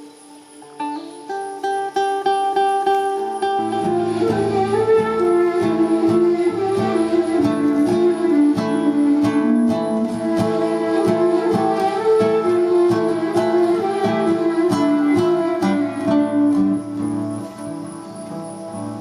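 Music with plucked, guitar-like string notes. About three and a half seconds in it becomes fuller and louder, with lower notes and a steady pulse.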